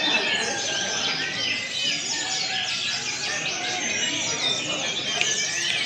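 Many brown-chested jungle flycatchers (SRDC) singing at once in a songbird contest. Their quick chirps and whistled phrases overlap into a steady, dense chorus of birdsong.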